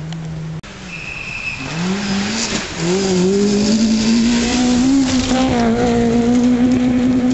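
Rally car engine on a gravel stage, its revs climbing, dipping once at a gear change, then held high and steady as the car approaches and grows louder.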